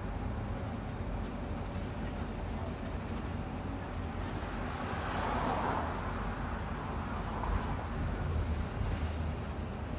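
Bus travelling: a steady low engine and road rumble, with a swell of louder noise about five seconds in and a few faint rattles.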